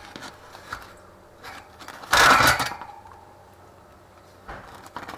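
A wire cooling rack rattling in a stainless steel tray as a round loaf of bread is turned over and set down on it, with one loud clatter about two seconds in and a few lighter clicks around it.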